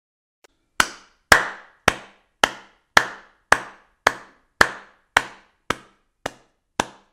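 A steady series of sharp knocks, about two a second, each with a short ringing tail, growing fainter in the second half.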